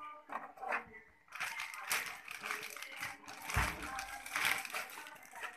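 Clear plastic wrapping crinkling and rustling as it is pulled and handled off a cardboard box, with a low thump about three and a half seconds in.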